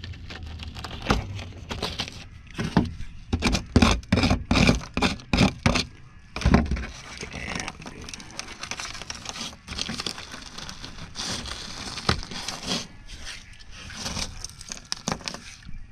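Flaky rust on a rotted steel floor pan of a Mercedes W123 being picked and broken off by a gloved hand. A quick run of sharp cracks and crunches comes in the first half, then looser scraping and rustling.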